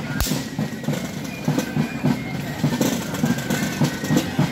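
Drums of a fife and drum corps beating a marching rhythm: a quick, even run of low thumps, with one sharp crack about a quarter second in.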